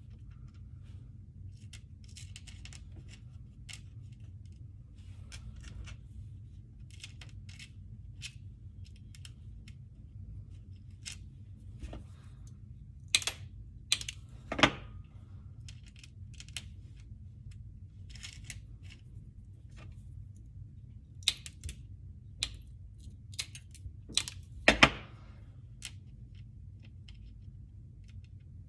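Hand cutting work: scattered small clicks and snips, with a few sharp, louder clicks about halfway through and again near the end, over a steady low hum.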